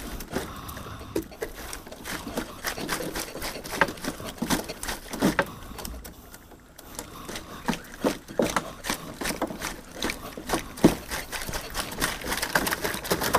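Live giant river prawns tapping and flicking inside a collapsible mesh prawn trap and onto a fibreglass boat floor as the trap is shaken out: many irregular sharp clicks and taps.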